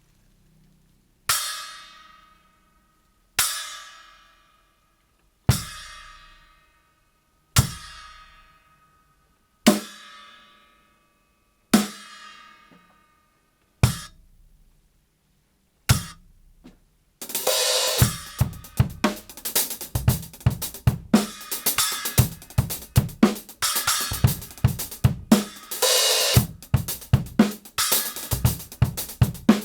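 Kingdo Collection Dry 6-inch splash cymbal struck on its own six times, about two seconds apart, each hit ringing briefly and dying away, then two shorter hits. Past the halfway point a drum-kit groove starts, with the splash struck again and again over the drums.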